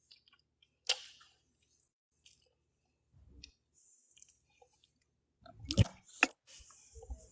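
Someone chewing, with scattered small wet clicks and mouth sounds, and a few sharper clicks or knocks close to the microphone late on.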